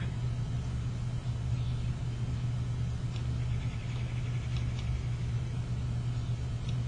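Steady low hum of background room noise, with a few faint clicks.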